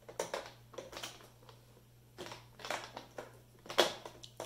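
Plastic markers being picked up and set down on a whiteboard and knocking against each other: irregular light clicks and taps, the loudest nearly four seconds in.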